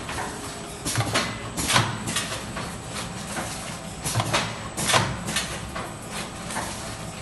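Soap packaging machine running, its pneumatic cylinders cycling with repeated sharp hissing clacks as they push rows of soap bars along. The clacks come every second or so in small clusters, over a steady machine noise with a faint high whine.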